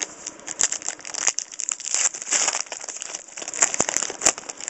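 Trading cards and pack wrapper being handled: steady rustling and crinkling with several sharp clicks as the cards are slid and flipped.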